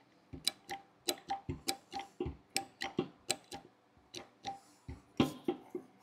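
Hand hydraulic crimping tool being worked as a cable lug is set in its die: a run of light sharp clicks, about three a second, pausing briefly around four seconds in before a few more.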